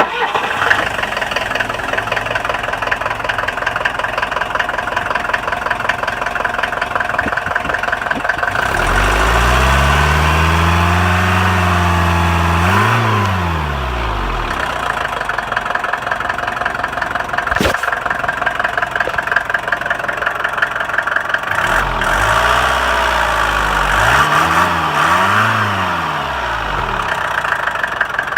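Mercedes-Benz OM615 four-cylinder diesel engine running with a fast, even beat, revved up and held for a few seconds about a third of the way in, then blipped twice near the end. It runs without rattling, a rattle the owner says is now gone.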